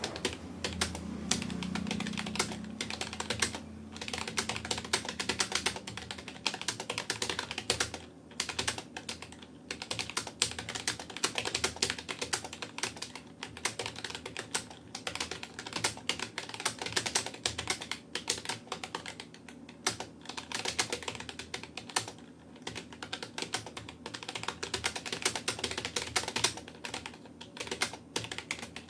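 Rapoo computer keyboard being typed on fast and continuously, a dense, irregular run of key clicks with a few brief pauses.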